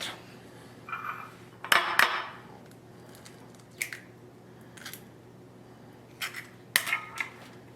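Clinks and knocks of kitchen utensils against a mixing bowl: two sharp knocks about two seconds in are the loudest, followed by a few lighter scattered taps.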